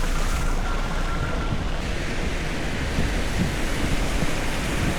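Wind rushing over the microphone and tyres hissing through standing water on a wet road while riding a bike.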